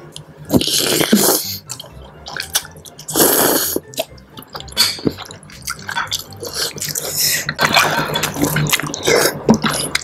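Noodles being slurped from a spoon of soupy seblak: three long wet slurps, the longest near the end, with short wet mouth clicks and chewing between them.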